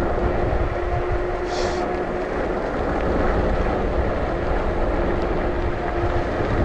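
RadRunner e-bike's rear hub motor whining steadily as the bike rides under pedal assist at about 15 mph, with wind rumble on the microphone. A brief hiss about one and a half seconds in.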